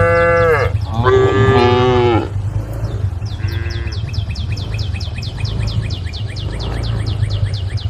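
Cows mooing: two loud calls close together, then a fainter one a little later. Through the second half comes a fast, high-pitched ticking series, over a steady low rumble.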